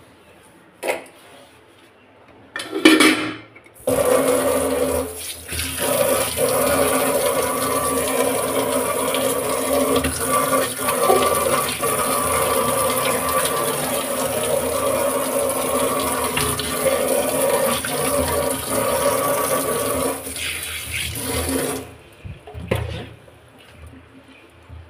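Tap water running steadily into a stainless steel kitchen sink. The flow starts about four seconds in and stops about three seconds before the end. A click and a short rush come before it.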